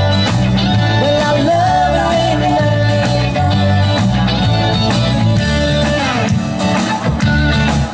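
Live country-rock band playing an instrumental stretch of the song, with a guitar lead over a steady bass and drum rhythm.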